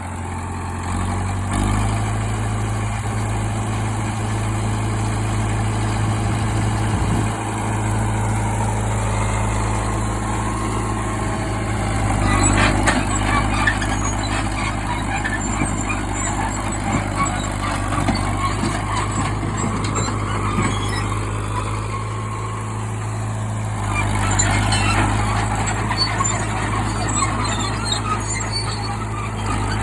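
Old bulldozer's engine running steadily under load while it pushes concrete, with rougher bursts of clanking and scraping about twelve seconds in and again around twenty-five seconds.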